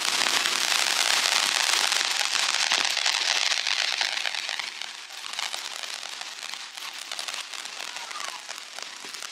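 Firework fizzing and crackling: a dense hiss of tiny rapid pops that eases to a quieter crackle after about four seconds.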